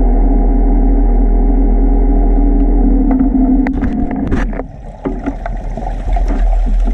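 Electric underwater scooter (diver propulsion vehicle) running, heard underwater as a loud, steady hum. A few sharp knocks come about four seconds in, the hum drops away briefly near five seconds, then returns unevenly.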